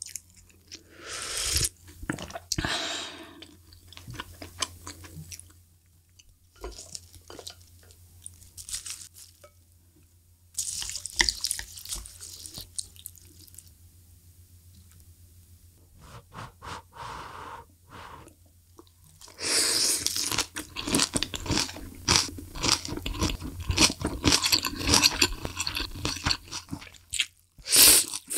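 Close-miked eating of spicy malatang hot pot: a slurp of broth from a wooden spoon about a second in, soft chewing through the middle, and a long run of loud slurping and chewing of noodles in the last third.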